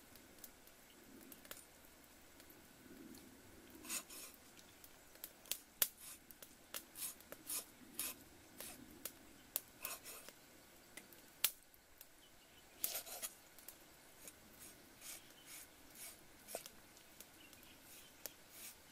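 Kitchen knife cutting through a duck gizzard and striking a round wooden chopping block: irregular sharp taps and knocks, some in quick runs of several strokes.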